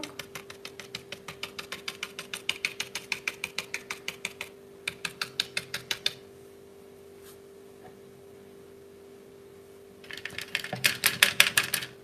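Paintbrush dabbing paint onto paper in quick taps, about eight a second, in runs with a pause of a few seconds near the middle, as leaves are stippled onto a tree crown. A faint steady hum runs underneath.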